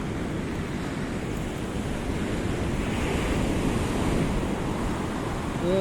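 Pacific Ocean surf washing in on a pebbly beach, swelling a little in the middle, with wind rumbling on the microphone.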